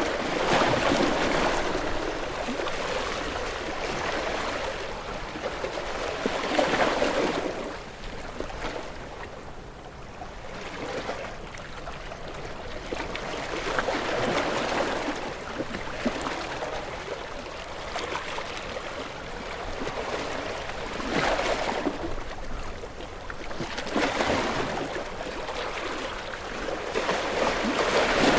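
Sea waves washing in and drawing back, the rush of water swelling and fading every few seconds.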